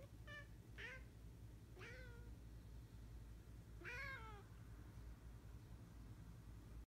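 Ragdoll cat chirping: four short, faint chirps, the last one, about four seconds in, longer, rising and then falling in pitch.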